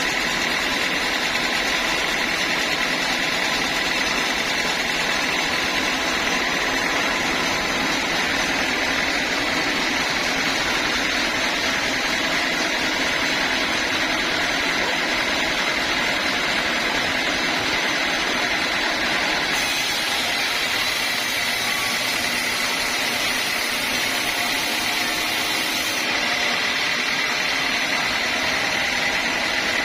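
Sawmill saw running steadily: a constant machine noise with a steady high whine.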